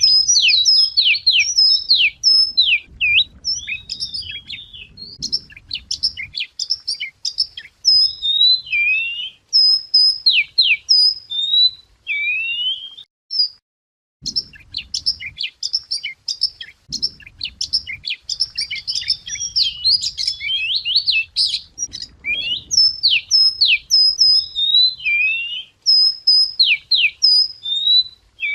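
Wagtail singing a fast, varied run of high chirps, whistles and trills, breaking off for about a second around halfway. A faint low rumble sits under the song at times.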